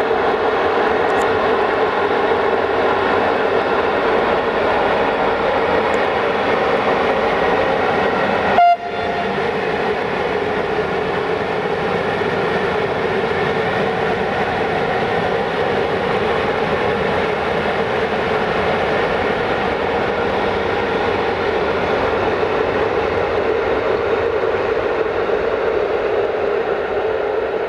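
060-EA electric locomotive running light through the yard: a loud, steady drone with a strong mid-pitched tone over a broad rushing noise, broken off briefly about nine seconds in.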